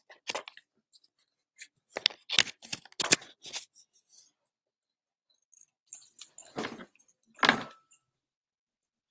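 Handling noise: a quick run of sharp clicks and light knocks in the first few seconds, then a louder cluster of knocks and rustling about seven seconds in.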